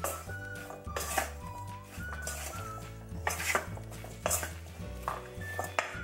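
Wooden spatula clattering and scraping against a metal mixing bowl as raw sweet potato strips are tossed, in irregular knocks, over background music with a stepping bass line.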